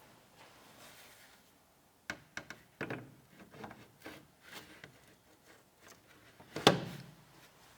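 Computer parts being handled and fitted during a PC build: a quick run of small clicks and taps a couple of seconds in, softer taps after, and one louder knock near the end.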